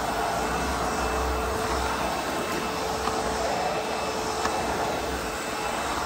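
ProTeam Super Coach backpack vacuum running steadily, its floor tool drawn across low-pile carpet: a continuous rush of suction air with a steady motor whine under it.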